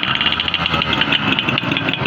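Yamaha 100 cc two-stroke single-cylinder motorcycle engine idling with a rapid, even firing beat.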